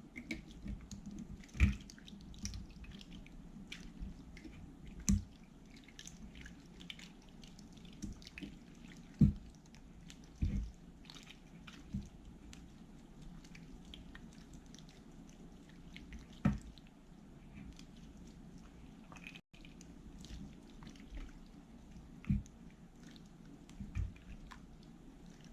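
Glue-and-borax slime being mixed and kneaded by hand: irregular wet squishes and sticky clicks.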